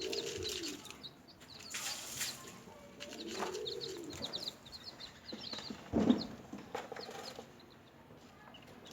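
Newly hatched chicks peeping in quick clusters of short, high chirps. Twice a lower, drawn-out arched call sounds. There is a rustle about two seconds in and a sharp thump about six seconds in.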